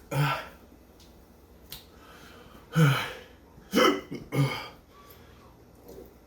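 A man hiccuping four times, the last three in quick succession: chili-induced hiccups from a shot of superhot pepper sauce.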